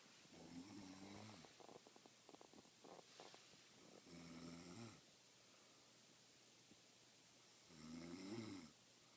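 A woman snoring faintly in her sleep: three snores about four seconds apart, each lasting about a second.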